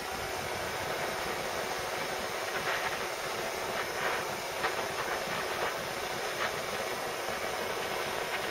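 Handheld butane blowtorch burning with a steady hiss as its flame heats a lead fishing weight, with a few faint ticks over it.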